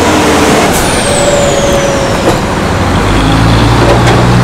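Semi truck passing close by on the street: loud, steady traffic noise, with a thin high whine sliding down in the first half and a deeper engine drone coming in about three seconds in.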